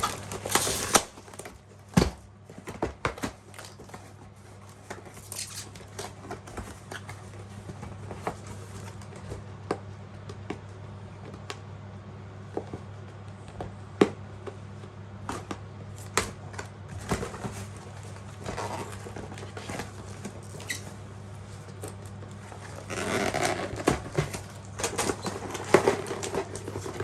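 Hands unpacking a boxed ring light and tripod: scattered clicks, knocks and rustles of the box and packaging, busiest near the end, over a steady low hum.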